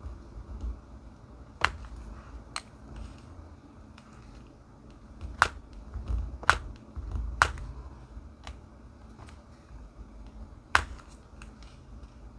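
Diamond painting work: a string of small, sharp, irregularly spaced clicks and taps from the drill pen and resin drills on the canvas, with soft low handling bumps.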